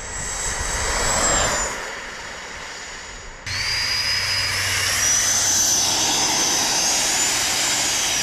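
High whine of an RC jet dragster's 70,000 rpm electric ducted fan under power. It swells and eases in the first two seconds. After an abrupt cut about three and a half seconds in, the whine climbs in pitch, holds, and starts to fall near the end, as the car's battery is starting to die.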